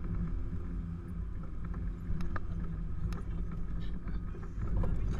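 Off-road vehicle's engine running steadily at low revs while driving a muddy forest track, heard from inside the cab, with a few sharp knocks about two to three seconds in.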